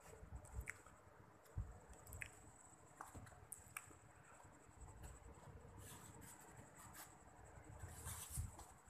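Near silence: faint rustling and scattered soft clicks and taps of a hand handling a kitten on a fabric cover, over a faint steady high-pitched whine.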